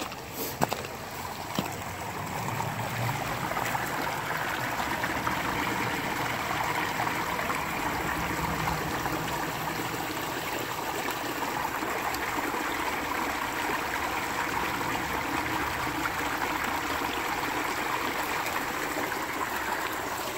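A small creek trickling and gurgling over rocks and ice, a steady rush of running water. A few sharp knocks in the first two seconds.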